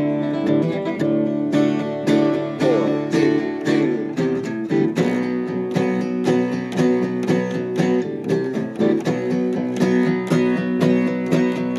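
Two acoustic guitars playing together, strummed chords in a steady rhythm with no singing.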